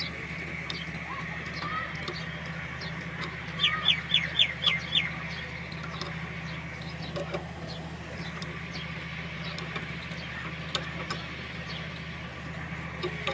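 A bird gives a run of six quick, falling high calls about four seconds in, over a steady low mechanical hum and scattered light clicks.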